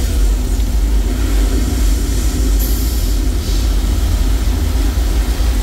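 Staged flash-flood effect: water rushing and pouring with a loud, steady, deep rumble.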